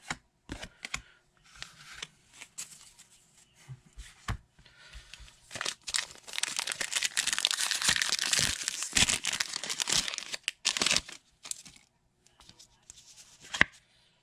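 A Pokémon booster pack's foil wrapper being torn open and crinkled: a dense, loud rustling from about five and a half seconds in until about eleven seconds. Short clicks and rustles of cards being handled come before and after it.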